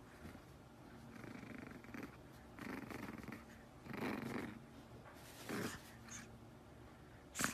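Black pug puppy making short breathy, growly grunts about once a second while it tugs at a cloth held in its mouth, in play. A brief sharper, louder noise comes right at the end.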